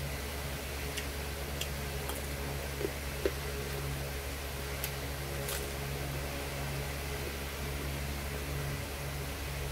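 Steady low electric hum, with a few faint clicks and two soft knocks in the first six seconds as raw carrot is chewed with the mouth closed.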